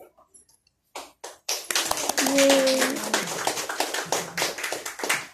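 Audience clapping: a couple of lone claps about a second in, then steady applause from many hands.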